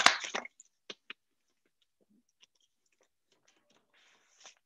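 Near silence on a video-call line after a short spoken question, with two faint clicks about a second in and a faint rustle near the end.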